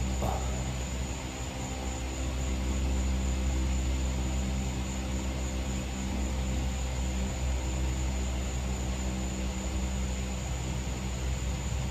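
Steady low mechanical drone made of several even, unchanging tones, with a thin, steady high-pitched tone above it.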